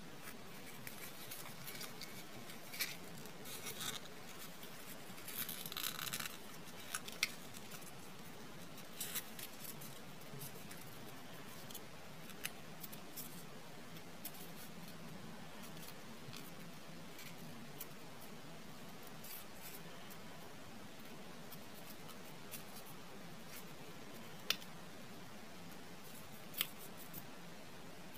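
Origami paper crinkling and rustling as fingers crease and tuck the folds of a paper star, with a few sharp ticks. The rustling is busiest in the first third, then thins to occasional small crackles.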